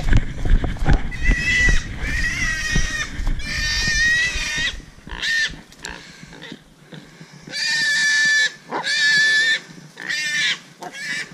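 A small wild hog squealing over and over in high, wavering squeals about half a second to a second long. Heavy thumping of running footsteps through brush fills the first half and stops about halfway through.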